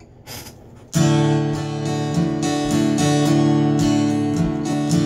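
Acoustic guitar strummed, steady chord strokes that start about a second in after a faint rustle, ringing on between strokes.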